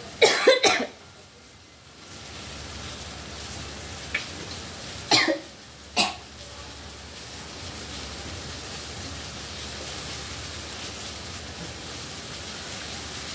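A person coughing, a few coughs right at the start and two more about five and six seconds in, over the steady sizzle of oil and spices frying in a steel wok.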